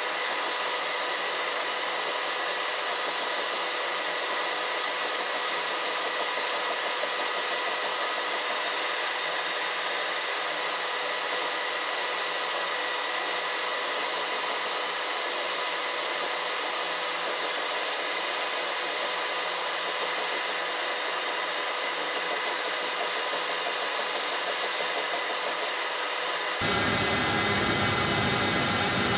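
LPKF Protomat S62 PCB milling machine isolation-milling copper traces with a 90-degree-tip engraving bit: a steady high spindle whine of several held tones over a constant airy rush. The sound turns fuller a few seconds before the end.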